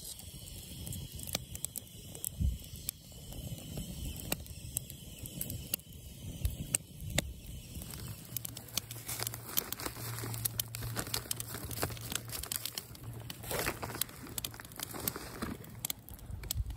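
Plastic packaging crinkling and rustling as it is handled, with many scattered sharp clicks. A low steady hum comes in about eight seconds in and stops about six seconds later.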